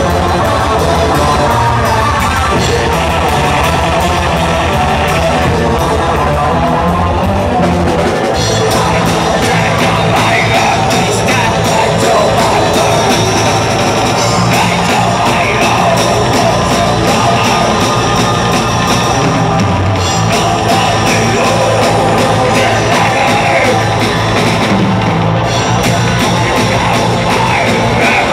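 Live heavy metal played loud by a three-piece band: distorted electric guitar, bass guitar and a drum kit with rapid kick-drum rolls. Harsh yelled vocals come in about eight seconds in, as the riff changes.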